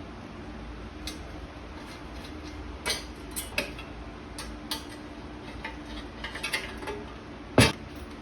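Small metal parts and hardware from an oil pan kit being handled and set down: scattered light clinks and knocks, with one louder knock near the end, over a faint steady hum.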